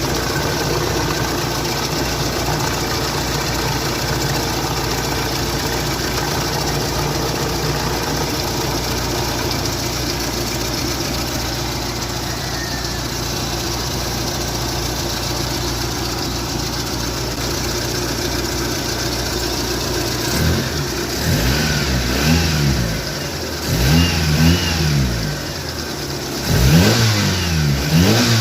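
Mitsubishi Lancer's 4G15 inline-four idling steadily just after starting. In the last eight seconds or so it is revved up and back down in a series of short blips.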